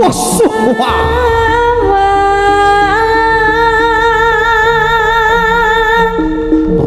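Live jaranan gamelan music: a long held, slightly wavering melody line over stepped mid-pitched notes and low sustained bass tones. A single sharp crack at the very start, fitting the dancer's pecut whip being cracked.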